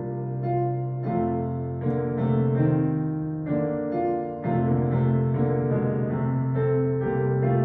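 Piano playing a slow, gentle piece: a held low bass note under chords that change about once a second.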